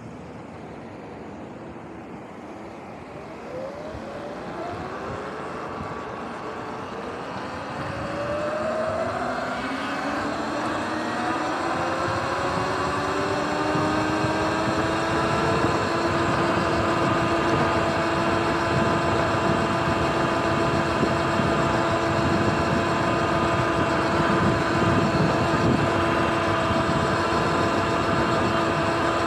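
Sur-Ron electric dirt bike's motor whine, climbing in pitch as the bike accelerates and then holding one steady pitch at cruising speed about halfway in. Wind and road noise grow louder as it speeds up.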